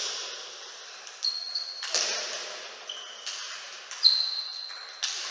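Table tennis rally: the ball knocks sharply off the rackets and table about once a second, with several hits leaving a short high ping. Each hit echoes in a large sports hall, and the loudest ping comes about four seconds in.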